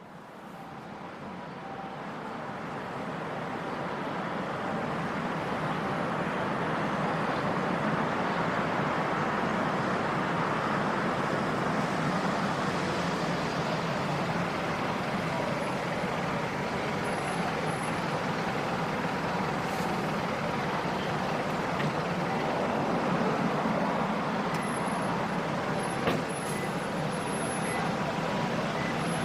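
Steady running noise of a train, fading in over the first few seconds and then holding level. Faint high-pitched squeals come in briefly in the second half.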